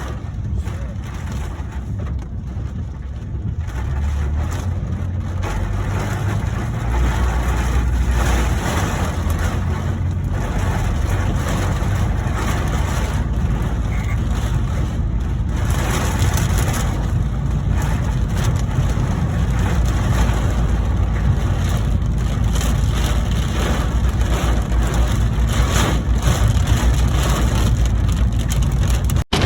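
Wind-driven rain pounding on a vehicle, heard from inside, over a deep rumble of strong gusts buffeting the body. The rain and wind grow louder about four seconds in and stay heavy.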